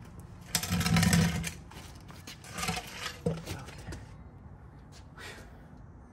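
Heavy Borg-Warner BW35 automatic transmission dragged out from under the car and scraping across concrete, loudest about a second in, with a second shorter scrape around three seconds in.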